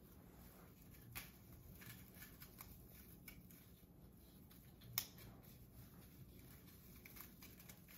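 Near silence with faint rustling and clicking of hands fitting a star topper onto a small artificial Christmas tree and moving its branches, with two sharper clicks about a second in and about five seconds in.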